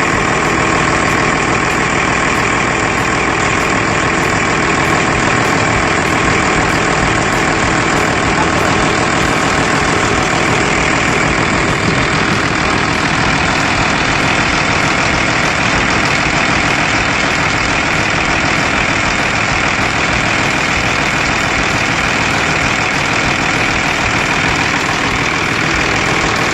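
Engine of a heavy work machine running steadily at a constant speed.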